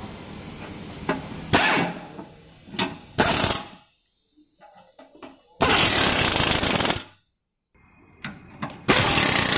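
Power screwdriver driving the large screws that fix the motor's gearbox into the scooter frame: two short runs, then two longer runs of about a second and a half each, with clicks between.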